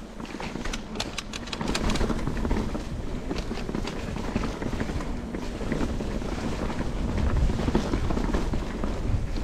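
Mountain bike ride on a dirt trail: wind buffeting the microphone over tyre and bike noise, with a run of quick clicks and rattles about a second in.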